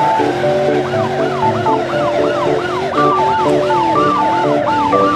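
Electronic police siren in a fast yelp, about three rising-and-falling sweeps a second, over background music.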